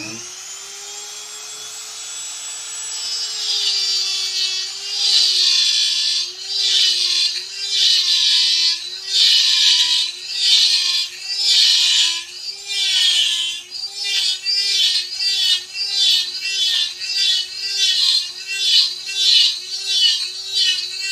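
Dremel rotary tool with a tungsten carving bit starting up and running with a steady whine, then grinding into white oak in repeated strokes, its pitch dipping each time the bit bites. The strokes come faster, about two a second, in the second half.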